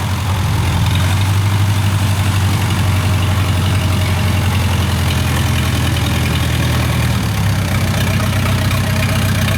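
Diesel engine of a Kubota rice combine harvester running steadily with a loud exhaust, its note shifting slightly about seven seconds in.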